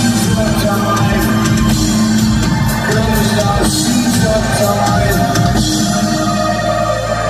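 Industrial band playing live through a loud PA, with drum hits over a dense wash of synths. About five and a half seconds in the drums drop out and a sustained low drone carries on.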